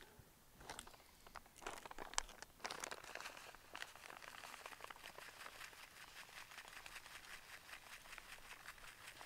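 Faint rustling and crunching of gloved hands working soil, with scattered light clicks at first, then a steady run of small crackles from about three seconds in.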